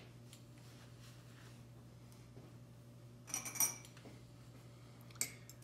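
Quiet kitchen room tone with a steady low hum, broken about three seconds in by a brief burst of clinking, rustling handling noise at the cutting board, and a couple of faint clicks near the end.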